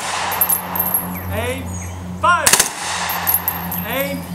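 Rifle volley from a seven-man firing party: one sharp crack of rifles fired together, with a ringing echo, about two and a half seconds in. It is the middle volley of a three-volley salute for a veteran's funeral. A voice shouts commands just before it and again near the end.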